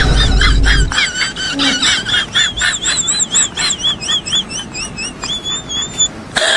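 Bird chirping: a quick run of short, arching high chirps, about four or five a second. A low boom sounds in the first second.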